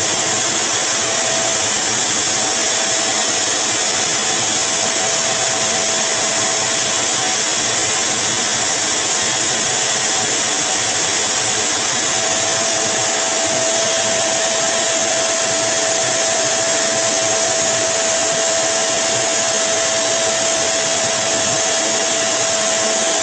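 Pet grooming dryer running steadily, a constant rush of blown air with a whine that grows stronger about halfway through.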